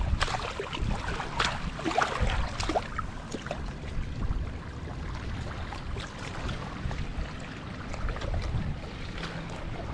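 Steady wind and water noise with scattered clicks and knocks, busiest in the first three seconds.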